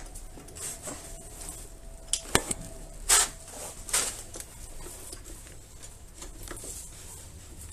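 Metal clinks and knocks from working a Honda XL250S motorcycle's rear wheel and axle into place: a few sharp knocks about two seconds in, the loudest about three seconds in, and another near four seconds.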